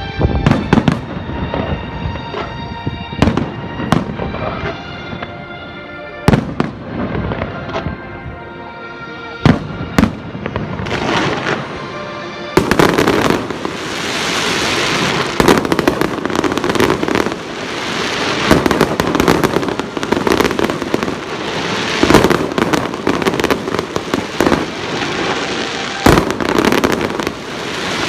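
A fireworks display: separate shells bursting with sharp booms over music playing along with the show. About twelve seconds in, a dense crackling barrage starts and runs on, with further booms in it.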